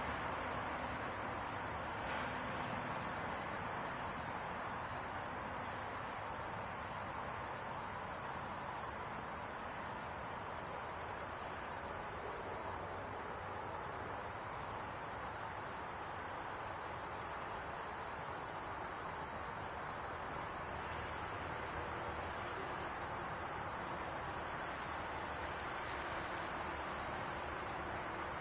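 A steady, high-pitched chorus of insects, such as crickets or katydids, in late-summer woodland.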